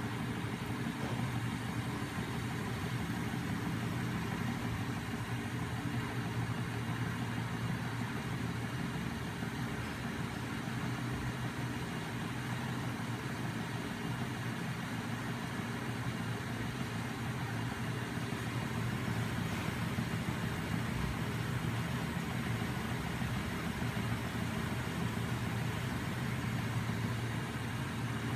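Home-built neodymium magnet machine running, a small DC electric motor spinning its flywheel and magnet rotors with a steady mechanical hum.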